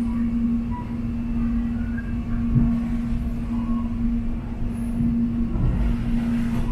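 Airport rail link train heard from inside the carriage while running between stations: a steady low hum on one pitch over the rumble of the wheels on the track.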